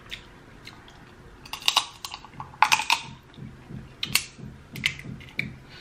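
Snow crab leg shell being cracked and snapped apart by hand: clusters of sharp crackling clicks, loudest about one and a half, two and a half and four seconds in, with smaller cracks near the end.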